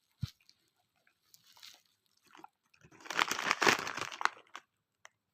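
Crunchy biscuit being bitten and chewed, loudest in a run of crunches around the middle, after a single soft knock at the start.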